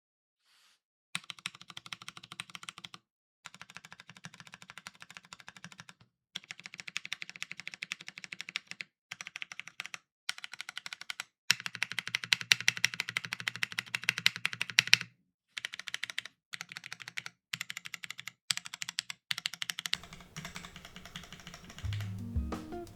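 Typing on a TGR Jane V2 ME mechanical keyboard: lubed vintage Cherry MX Brown switches on a top-mounted FR4 half plate with no foam, under DCS keycaps. Runs of rapid keystrokes are broken by short pauses. Music comes in near the end.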